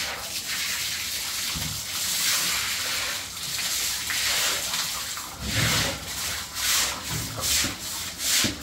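Water gushing from a hose onto a wet concrete floor, a steady splashing hiss. From about halfway through, a long-handled broom scrubs the wet floor in regular strokes, a little under two a second.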